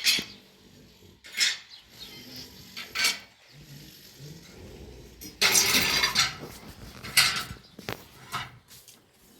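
Repeated metal clinks and scrapes, with a longer scraping rush a little past halfway.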